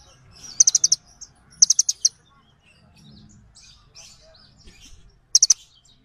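Small songbirds calling, with three bursts of rapid, high-pitched chips of four or five notes each, about a second in, two seconds in and near the end. Fainter, scattered chirps fill the gaps between the bursts.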